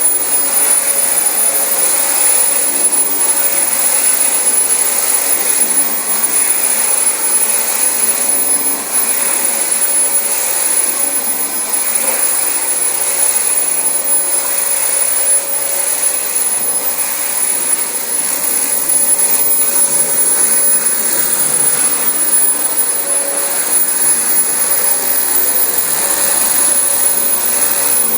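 Dyson DC25 bagless upright vacuum cleaner running steadily over carpet: an even rush of air with a constant high-pitched motor whine.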